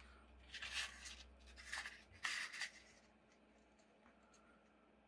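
A square sheet of origami paper being folded in half and the crease rubbed flat by hand: three short papery swishes in the first three seconds, then near silence.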